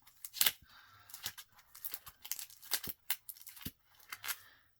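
Comic books being handled: a quick, irregular series of short paper and plastic rustles and crinkles as the books are shuffled and pulled from the stack.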